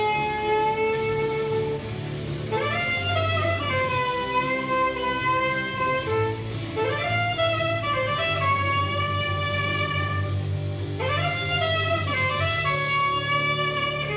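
Live instrumental music: a solo melody instrument slides up into long held notes in phrases of a few seconds each, over a steady low accompaniment.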